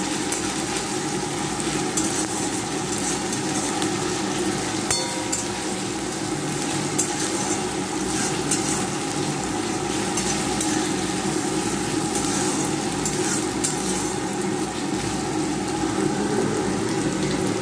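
Onions, tomato and ginger-garlic paste sizzling steadily in hot mustard oil in a kadai while being stirred, with light clicks of the spatula against the pan now and then.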